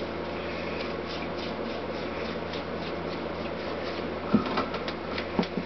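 A brush scrubbing the aluminium engine block of a Honda CX500 as it soaks in petrol, in quick repeated strokes, with a few louder knocks near the end.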